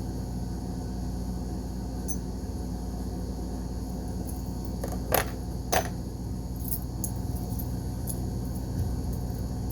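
A steady low background hum, with two sharp clicks about half a second apart midway and a few faint light ticks after them, like small objects being handled.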